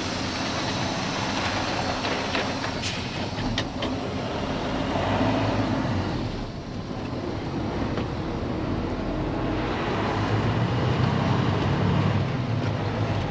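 Diesel engine of a day-cab semi tractor running as the truck drives off, heard from inside the cab. It dips briefly about six and a half seconds in, then builds up again toward the end.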